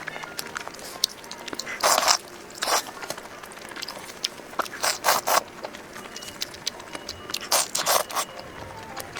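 Close-miked eating: chewing and biting of crunchy food, with several loud crisp crunches spaced a couple of seconds apart and small mouth clicks between them.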